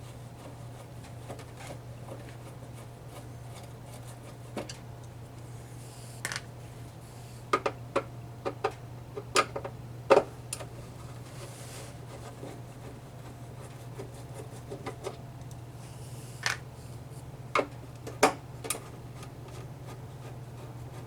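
Irregular clicks and knocks of a plastic turntable housing and its parts being handled, a few at a time with pauses between, over a steady low hum.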